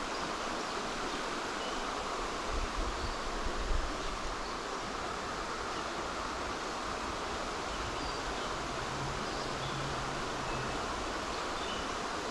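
Steady rush of a flowing mountain trout stream, with a few low bumps about three seconds in.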